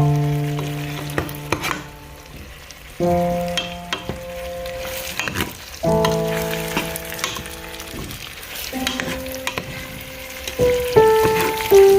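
Food sizzling as it fries in a pan, with stirring clicks. Over it plays slow music: sustained chords that start sharply and fade, a new one every three seconds or so, coming faster near the end.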